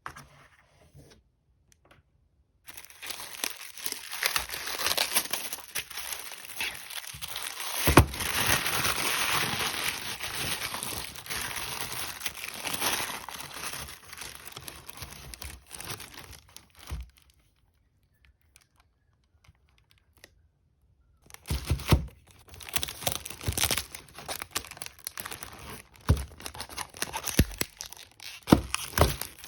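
Packaging being handled, crinkling and tearing in long stretches, with a sharp snap about eight seconds in and a pause of a few seconds past the middle.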